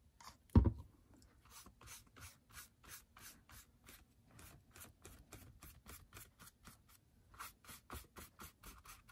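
A paintbrush brushing glue over a thin paper napkin on a paper journal cover, in quick, even, scratchy strokes at about four a second. There is a single knock about half a second in.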